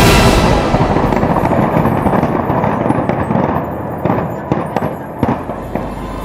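Fireworks crackling densely, thinning out and getting quieter, with a few sharp bangs near the end.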